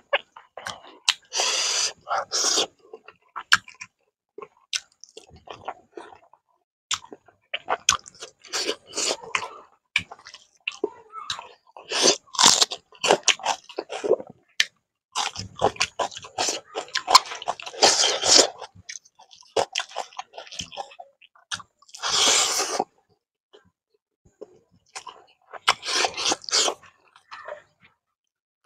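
A man chewing mouthfuls of fish curry and rice eaten by hand, with some crunchy bites of raw vegetables or chilli, in irregular bursts separated by short pauses.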